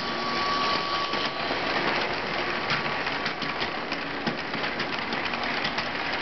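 LEGO train running past: its small electric motor whirring and its plastic wheels clicking and clattering over the plastic track joints and a diamond crossing.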